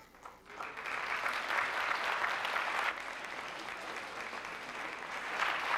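Audience applauding. The clapping starts about half a second in, is loudest for the next two seconds, then carries on more lightly.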